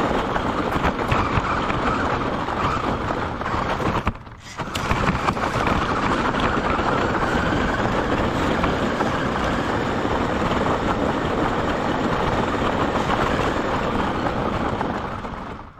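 Gravel crunching and rattling under a radio-controlled car's tyres, mixed with wind rushing over its onboard microphone: a steady, loud noise. It drops out briefly about four seconds in and fades away near the end.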